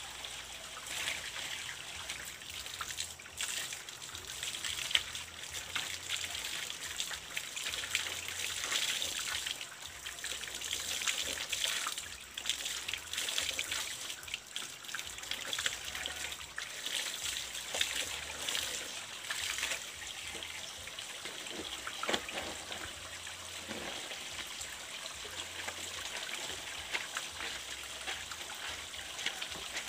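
Water trickling from the open end of a PVC pipe onto wet ground, splashing unevenly as hands wash a cloth baby diaper in the flow.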